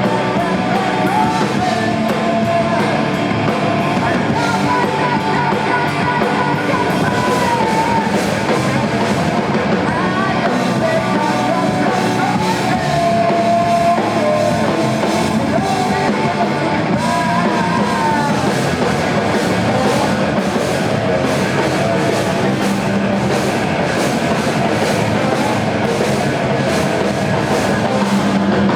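A rock band playing live at a steady, loud level: drum kit, guitar and bass, with singing.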